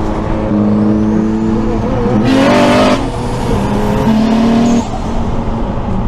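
Toyota Chaser JZX100's turbocharged 1JZ-GTE straight-six running under way, heard from inside the cabin, its note stepping up and down in pitch. A short rushing hiss cuts in about two seconds in and lasts under a second.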